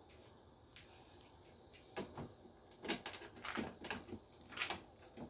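Light clicks and knocks of a plastic water dispenser's cover and parts being handled, several in the second half.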